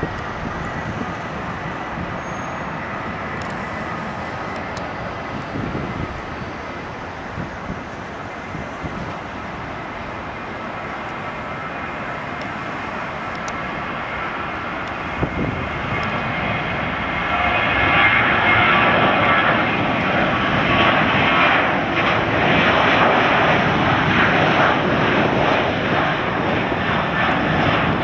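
Boeing 737-800's two CFM56-7B turbofan engines running at low taxi thrust with a steady high whine. About 17 seconds in they grow louder and fuller as they spool up toward takeoff power.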